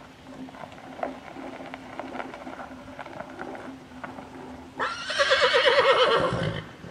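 A horse whinnies once, a loud quavering neigh of about two seconds that starts near the five-second mark. Before it, soft hoof falls sound on dirt as a horse walks.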